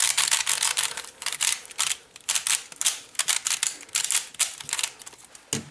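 Rapid, irregular plastic clicking and clacking from hands handling plastic puzzle cubes and their packaging.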